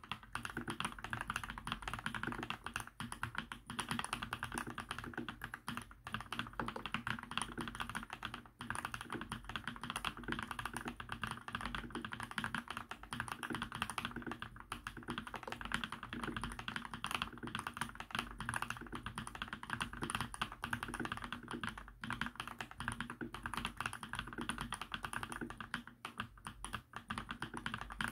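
Mstone Groove T mechanical keyboard with full-lubed Milky v2 45 g linear switches being typed on quickly with both hands: a dense, continuous stream of soft keystrokes with no pauses.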